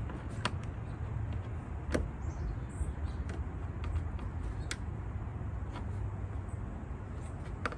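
Plastic push-pin trim clips being pried up and popped out with a wedge tool, a few scattered sharp clicks and fainter ticks, over a steady low rumble.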